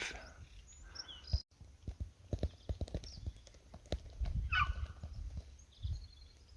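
Footsteps on the gravel of a desert wash: irregular crunches and knocks over a low wind rumble, with a few short high bird chirps in the second half.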